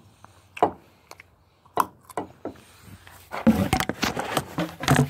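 A few scattered clicks and knocks, then a couple of seconds of rough grinding from the old water pump being turned by hand. Its shaft wobbles and its worn bearings sound bad.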